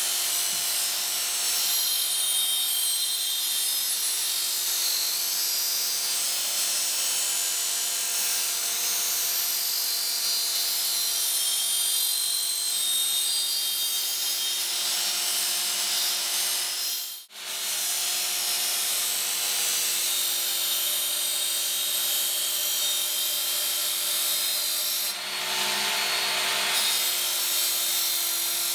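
Work Sharp Ken Onion Edition belt sharpener running with its coarse belt grinding a machete's steel edge: a steady grinding hiss over the motor's hum, with the sound dropping out for a moment about 17 seconds in. The coarse belt is shaping the edge bevel and raising a burr along the blade.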